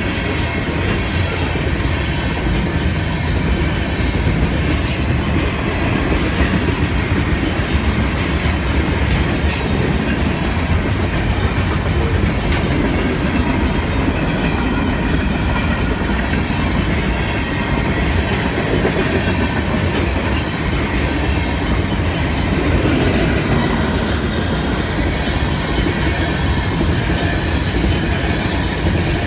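Union Pacific freight train's cars rolling past close by: a steady rumble of steel wheels on rail, with repeated clicks over the rail joints.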